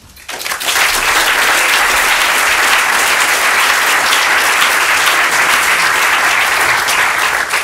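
Audience applauding: many people clapping together, building up over the first second, holding steady, then dying away near the end.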